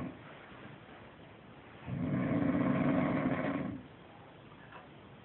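A sleeping animal snoring in slow, even breaths: one long snore of about two seconds starting about two seconds in, with the end of the previous snore at the very start.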